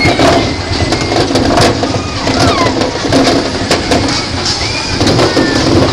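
Tilt-a-Whirl ride running at speed, heard from inside a spinning car: a dense, steady rumble and rattle of the ride, with short high-pitched cries that rise and fall over it.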